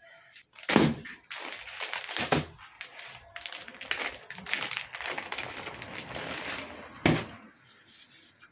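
Clear plastic packaging crinkling and rustling as hands handle a packed suit set, with a few sharp thumps, the loudest about a second in and another near the end.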